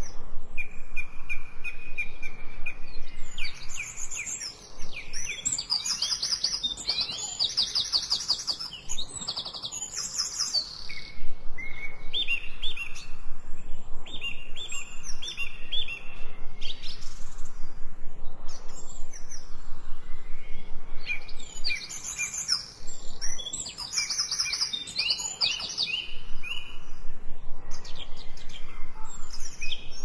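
Several songbirds singing: short repeated chirps and fast trilled phrases overlapping one another, with the busiest stretches a few seconds in and again about twenty seconds in.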